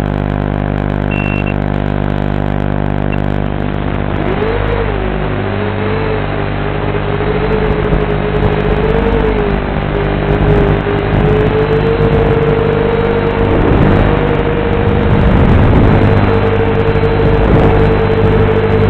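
FPV quadcopter's brushless motors and propellers heard through the video transmitter's built-in microphone. A steady buzz at first, then from about four seconds in the motor whine rises and wavers in pitch with the throttle, getting a little louder toward the end.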